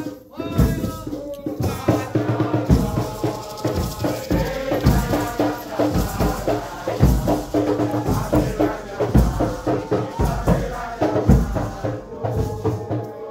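Nyahbinghi chanting: a group of voices singing over hand drums with a recurring deep bass-drum beat and rattling shakers.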